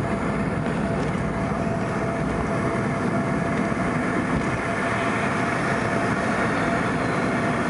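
Inside the cabin of an MD-88 airliner on its takeoff roll: the rear-mounted Pratt & Whitney JT8D turbofans at takeoff power and the runway rumble make a steady loud rush, with a thin steady tone over it.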